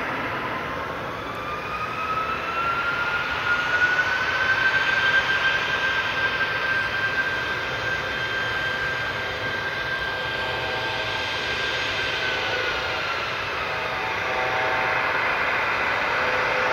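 Alpha Jet's twin Larzac turbofan engines running on the runway, over a steady jet rush. The whine rises in pitch over the first few seconds, holds steady, then falls away near the end.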